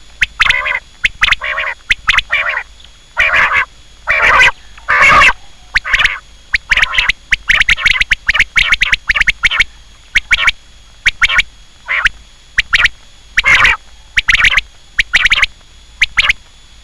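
Quail calling: loud, short, sharp call notes repeated over and over in irregular clusters of two or three, about two dozen in all, stopping just before the end.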